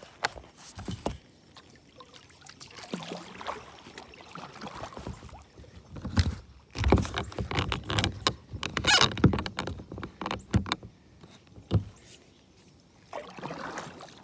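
Kayak paddling: paddle strokes splashing in the water, with sharp knocks and clatters, loudest and busiest in the middle stretch.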